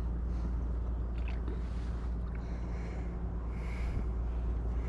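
Water swishing around a kayak, with a few soft splashes over a steady low rumble.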